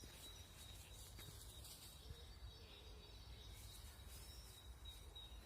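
Near silence: faint outdoor background with a thin, steady high-pitched tone like an insect's trill over a low rumble, and a few faint chirps.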